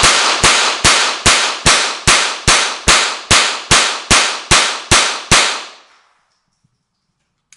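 Walther HK G36 .22LR semi-automatic rimfire rifle fired in a rapid string of fourteen shots at about two and a half a second, each with a short echo. The shots stop a little over five seconds in, when the magazine runs empty and the bolt locks back.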